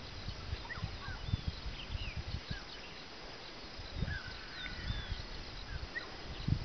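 Birds chirping and whistling in short scattered calls, over irregular low thumps and rumble.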